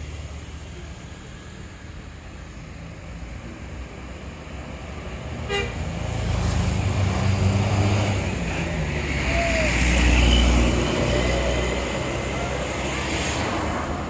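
A large diesel bus drives past close by. Its engine grows loud from about six seconds in, is loudest around ten seconds, then eases off over steady road traffic.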